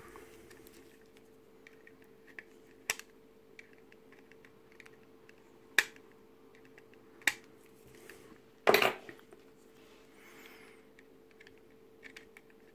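Sharp clicks and small taps of metal tweezers and small plastic kit parts against a hard plastic model car body, four distinct clicks with the loudest about nine seconds in, over a faint steady hum.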